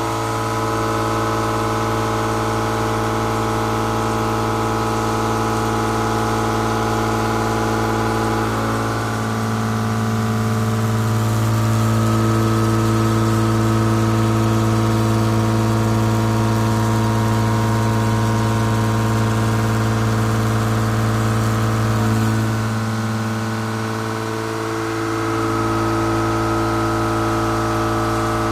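CNC milling machine cutting metal with an indexable square shoulder milling cutter: a steady machine hum made of several held tones, shifting pitch pattern about a third of the way in and again near the end.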